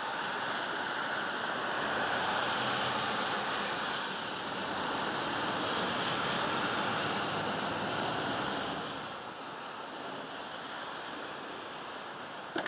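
Cars driving through flooded, rain-soaked streets: a steady rush of water spraying off tyres, a little quieter after about nine seconds. A short knock at the very end.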